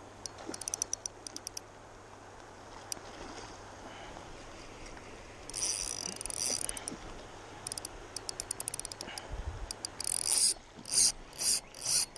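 The drag of a KastKing Zephyr 1000 spinning reel clicking as a hooked chinook salmon takes line. Short runs of rapid clicks come and go, then grow louder and fall into bursts about three times a second near the end.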